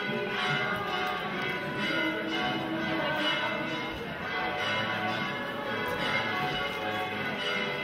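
Church bells ringing, many overlapping tones struck over and over without a break.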